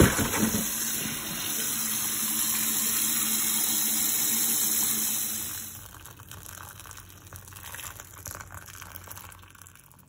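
Kitchen tap running steadily onto mussels in a colander in the sink, a loud even rush of water. About six seconds in it drops suddenly to a quieter, uneven stream of tap water splashing into a steel bowl of water holding tomatoes.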